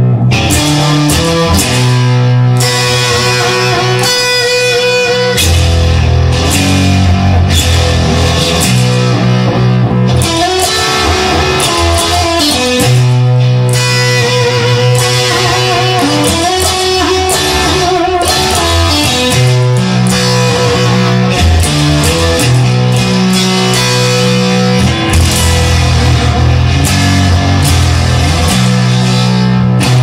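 Instrumental rock music led by electric guitar, playing held notes and changing chords.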